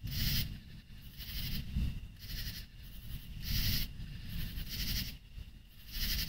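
Short high-pitched animal calls repeating about once a second, over a low rumble.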